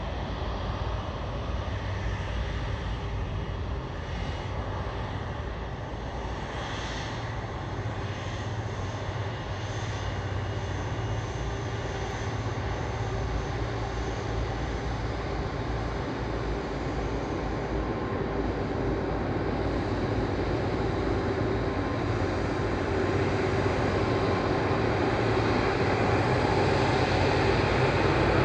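Airbus Voyager KC3's twin Rolls-Royce Trent 700 turbofans running at taxi power: a steady jet rumble and whine that grows gradually louder as the aircraft taxis closer and turns onto the runway.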